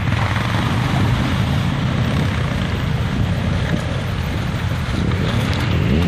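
Enduro motorcycle engine running as the bike rides through a shallow river, with water splashing around it.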